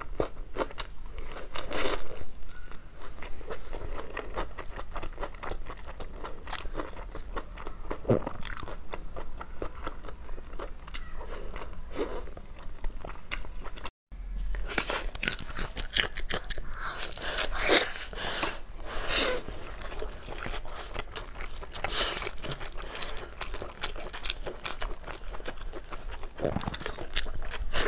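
Close-up eating sounds of pork being bitten and chewed, with many quick wet mouth clicks and smacks. The sound cuts out for an instant about halfway.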